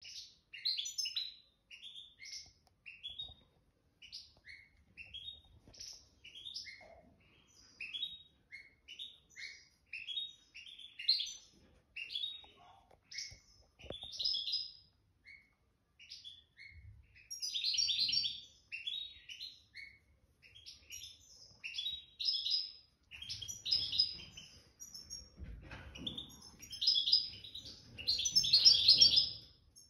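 A caged songbird singing a long, fast twittering song of short, high, jingling notes with brief pauses, louder in the last few seconds. A faint low rumble sits under the song near the end.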